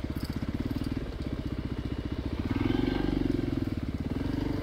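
Single-cylinder dual-sport motorcycle engine running at low revs, picking up briefly past the middle before easing off again.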